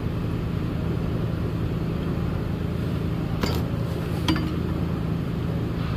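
Two light metallic clinks of a hand tool against the injector hold-down, about three and a half and four seconds in, the second ringing briefly, over a steady low hum.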